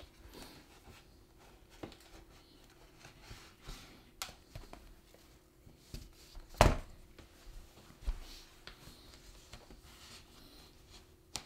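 Quiet handling of a laptop's plastic bottom cover being pried off its snap clips, with a few sharp plastic clicks, the loudest about six and a half seconds in.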